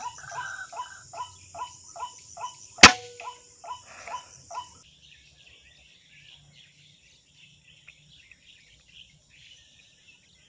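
A single shot from a PCP air rifle, one sharp crack about three seconds in. Before and just after the shot a bird calls a short note over and over, two or three times a second. The calls stop about five seconds in, leaving a faint high insect hiss.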